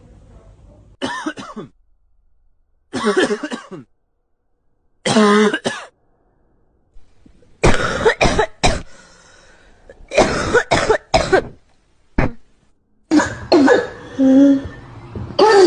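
A person coughing again and again in short separate bouts, some of them throaty, voiced coughs.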